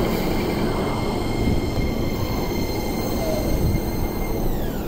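Keio 8000 series electric train rolling slowly alongside the platform and braking to a stop, with a dense rumble of wheels on rail. Several high whining tones hold steady, then slide down together in pitch near the end as the train halts.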